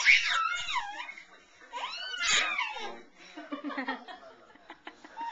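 Baby squealing with delight: two long, very high-pitched squeals that sweep up and down, then quieter voice sounds.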